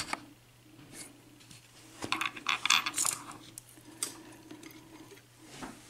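Small metal padlock parts clinking and clicking as they are handled and set down on a hard surface: a single click at the start, a cluster of light clinks about two to three seconds in, then two more single clicks.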